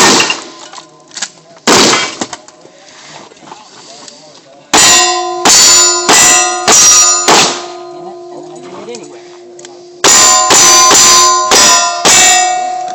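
Two shotgun blasts, then two quick strings of about five or six handgun shots each. Struck steel plate targets clang and ring on after the hits.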